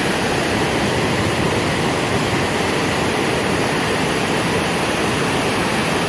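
Creek rapids rushing over rock ledges: a loud, steady rush of whitewater.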